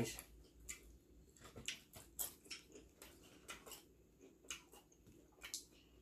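Faint chewing and mouth sounds of people eating fried chicken and fries, with scattered irregular small crunches and clicks.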